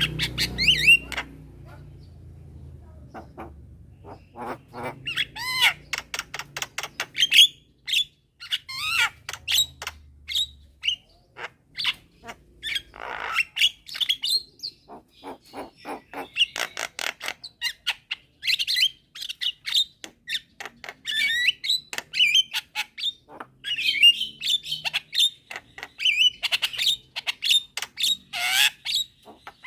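Javan mynas calling: a dense run of short chattering notes, clicks and brief whistles, sparser for a couple of seconds near the start.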